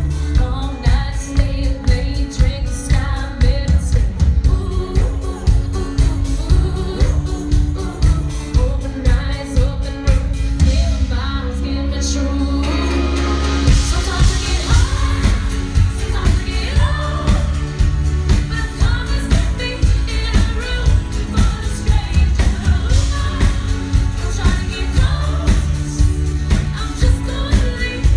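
Live pop band performance: a woman singing lead over guitar, bass and drums with a steady beat. About eleven seconds in, the drums drop out for roughly three seconds under a held bass note, then the full band comes back in.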